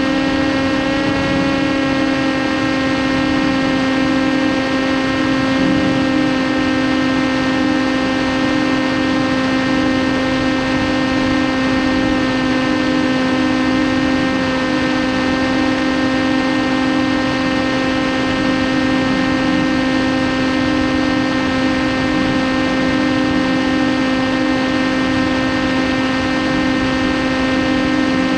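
Electric motor and propeller of a TBS Caipirinha 2 flying wing running at steady cruise throttle, heard from the onboard camera: a steady, unchanging hum over a constant rush of air.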